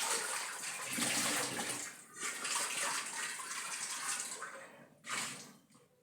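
Tap water running and splashing, broken briefly about two seconds in, tailing off after about four seconds, with one short splash near the end.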